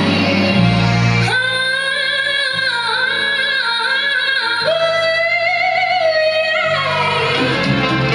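A woman singing long held notes with vibrato, backed by a live band with a bass line; her melody steps down near the end.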